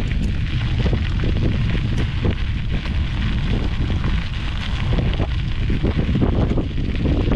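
Wind buffeting the microphone, a heavy steady rumble, with a runner's footsteps striking in a quick rhythm underneath.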